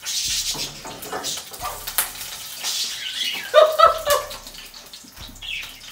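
Food sizzling in a frying pan, a hiss strongest in the first second, with a sharp click about two seconds in. A short vocal sound comes a little past halfway.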